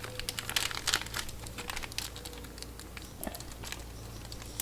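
Rustling and crinkling with many small scattered clicks, as hands handle small parts, over a steady low hum.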